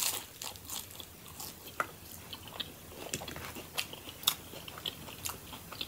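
A person chewing a mouthful of crunchy hard-shell taco. It is heard as a run of small, irregular crunches and mouth clicks.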